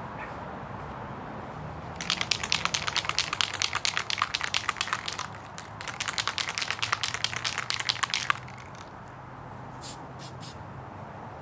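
Aerosol spray can of primer being shaken, its mixing ball rattling in fast even strokes for about six seconds with a short break partway, then a few light clicks.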